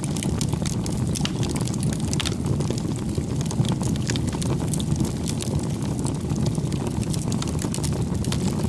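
Wood fire burning, with a steady low rumble and frequent small crackles and pops.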